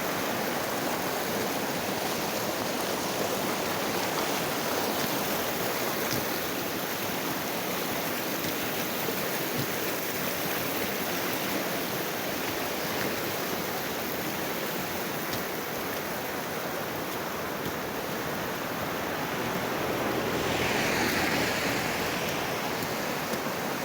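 Steady rushing of a fast, shallow forest stream running over its bed, growing a little louder near the end.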